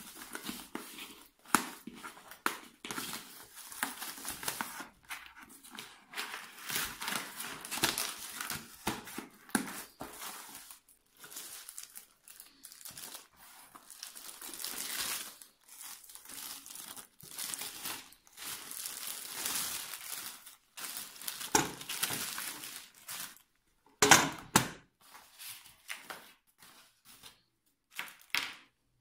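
Clear plastic wrapping crinkling and rustling in irregular bursts as it is pulled off a new bathroom scale, with cardboard packaging being handled. Late on come a few sharper, louder handling noises.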